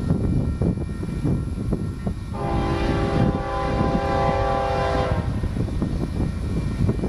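Nathan K5HL five-chime air horn on a Union Pacific diesel locomotive sounding one long blast about two seconds in, held for nearly three seconds, over the steady low rumble of the approaching locomotive and train.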